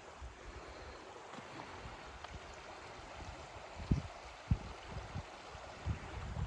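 Small stream of running water flowing in a steady rush, with a couple of short low thumps about four seconds in.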